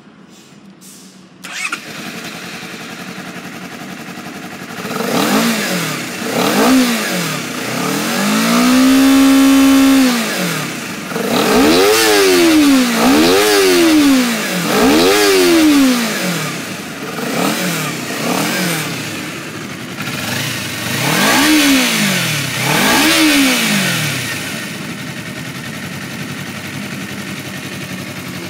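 2017 Honda CBR250RR's parallel-twin engine starting up about a second and a half in and settling to idle. It is then revved in a series of quick throttle blips, with one rev held for about two seconds, before dropping back to a steady idle for the last few seconds.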